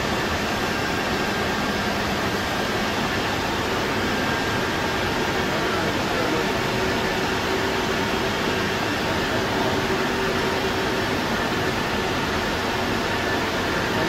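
Steady rush of cooling fans and air conditioning around telecom equipment racks, with a faint steady whine running through it.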